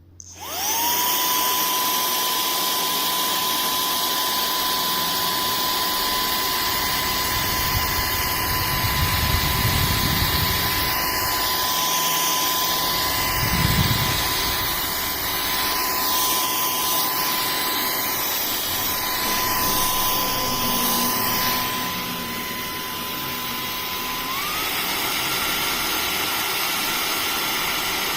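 Cordless handheld vacuum cleaner switched on: its motor spins up within a second into a steady high-pitched whine with rushing air. The pitch steps up about three seconds before the end.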